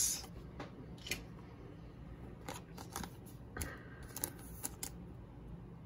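Pokémon trading cards being handled and a holo card slid into a clear plastic sleeve: faint, scattered rustles and light flicks of card and plastic, a few more together in the second half.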